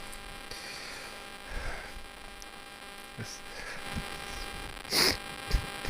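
Faint steady electrical hum with no engine running, the paramotor's engine having cut out. A short rush of air comes about five seconds in.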